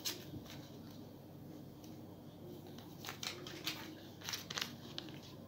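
A small folded paper slip being unfolded by hand: faint paper rustling with a few short crinkles, most of them about three to four and a half seconds in.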